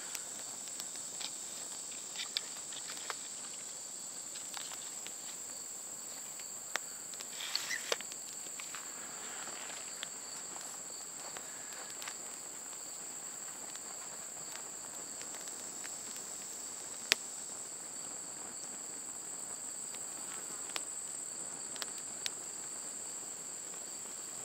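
Stick fire built as a teepee burning and crackling, with scattered sharp pops and one louder pop a little past the middle. Under it, a steady high-pitched drone of crickets.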